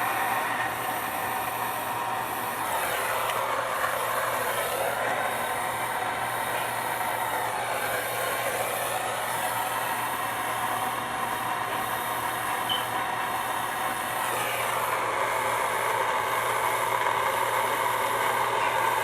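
Propane torch flame hissing steadily while soldering copper pipe joints, its tone shifting slightly a few seconds in and again near two-thirds of the way through.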